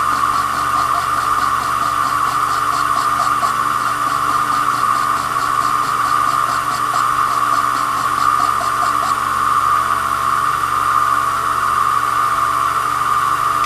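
Small cue lathe running steadily with a constant motor whine as it spins a cue, while the cue's new layered leather tip is worked by hand. A light, rhythmic ticking runs along with it and stops about nine seconds in.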